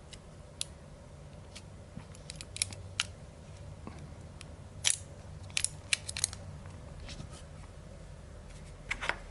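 Scattered small sharp clicks and ticks, single and in quick clusters, over a faint steady hum: hands working with small parts and tape.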